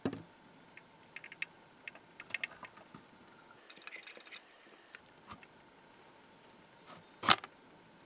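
An 1880s Lockwood mortise lock being fitted into a wooden mortise: scattered light metallic clicks and clinks from the lock case and its faceplate. There is a knock at the very start, and one sharp, louder knock near the end as the lock seats in the wood.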